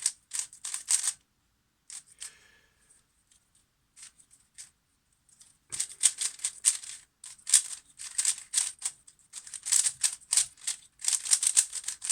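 Qiyi Warrior S plastic 3x3 speedcube being turned rapidly by hand, its layers clicking and clacking in quick rattling runs. It is brand-new and tight out of the box. There is a short burst at first, a few sparse clicks, then dense continuous turning from about six seconds in.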